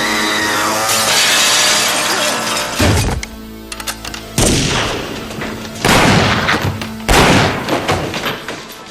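Film soundtrack of a shootout: a dense stretch of crashing and breaking glass, then four heavy gunshots, each with an echoing tail, about a second and a half apart, over dramatic music.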